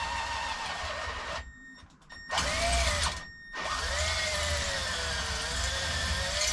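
Power drill boring a hole in a bicycle frame tube, its motor whine sagging and rising in pitch under load. It runs for about a second and a half, stops, gives a short burst around two seconds in, then runs again from about three and a half seconds on.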